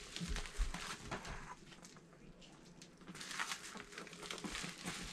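Packaging rustling and crinkling as a package is opened and its contents handled, with scattered light clicks and a couple of soft thumps about half a second in.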